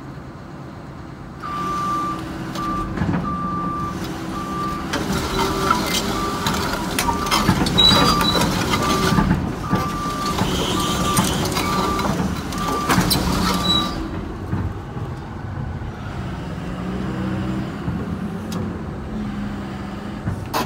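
2006 Kobelco SK250LC crawler excavator travelling on concrete: steel tracks clattering over the Mitsubishi six-cylinder turbo diesel, with the travel alarm beeping repeatedly at one pitch. The beeping and track noise stop about two-thirds of the way through, leaving the diesel running alone.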